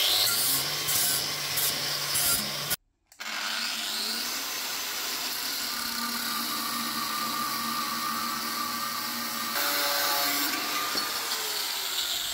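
Power tool cutting through the car's body sheet metal to clear room for the exhaust mufflers, running steadily with a brief total break about three seconds in.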